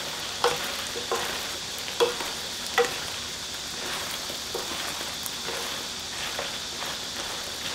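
Potatoes and shishito peppers in a thick soy-gochujang sauce sizzling steadily in a pan as the braise reduces on medium heat. A wooden spoon stirs and knocks against the pan, four sharper knocks in the first three seconds, then lighter ones.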